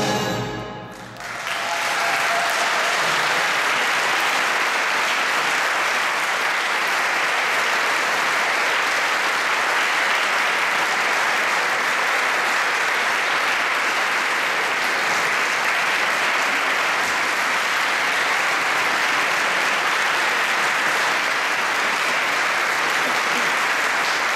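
The concert band's last chord dies away within the first second, and after a brief lull the audience applauds steadily.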